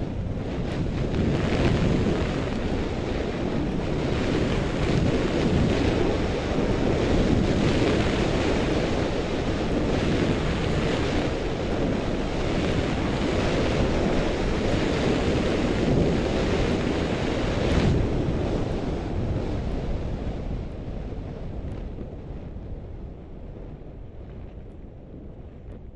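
Wind rushing over a goggle-strap-mounted action camera's microphone while skiing downhill, mixed with skis hissing and scraping on groomed snow. The noise grows quieter over the last several seconds.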